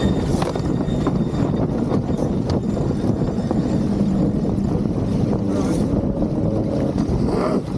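Wind buffeting the microphone and water rushing along the hull of a sailing keelboat under way, a steady loud noise with a few faint knocks from deck gear.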